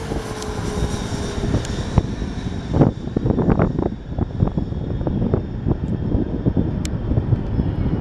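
Jet engines of a twin rear-engined regional jet rumbling as it passes overhead on final approach and heads away toward the runway, with a faint whine that falls in pitch over the first two seconds. Wind gusts on the microphone throughout.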